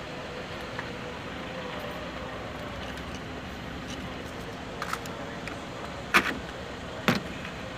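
A few sharp clicks and clinks of spark plugs and hand tools being handled over the engine. Two of them, about a second apart near the end, are the loudest. They sit over a steady background hum.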